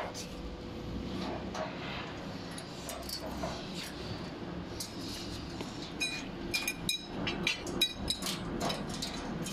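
Light metallic clinks and taps as loose nuts, bolts and a metal bracket are handled and fitted to an electric tricycle's tubular canopy frame. A cluster of sharper, briefly ringing clinks comes in the second half, over a steady low workshop hum.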